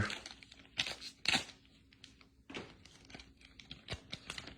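Foil trading-card pack wrapper being torn open and crinkled, in a few short bursts, the loudest about a second in.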